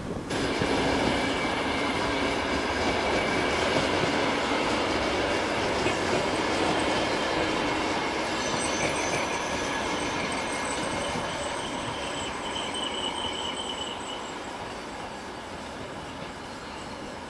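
An old VR Sm-series electric commuter train running along the tracks and drawing away, its wheels rumbling and rattling over the rails, with high steady wheel squeal strongest in the middle. The sound fades slowly as the train moves off.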